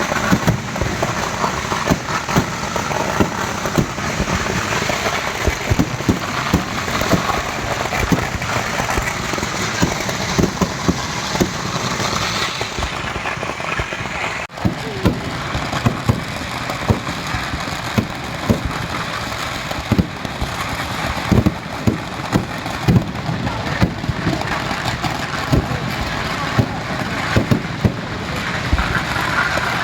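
Kerala temple-festival fireworks (vedikkettu): a dense, continuous barrage of firecracker bangs over steady crackling, with a momentary break about halfway through.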